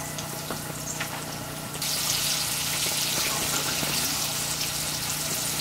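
Breaded panfish fillets frying in hot canola oil in a pan, a steady sizzling hiss with small crackles that gets much louder about two seconds in, over a steady low hum.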